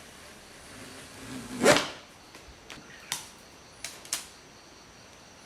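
One loud knock about two seconds in, after a short swelling rustle, followed by four lighter clicks, like objects being handled and set down.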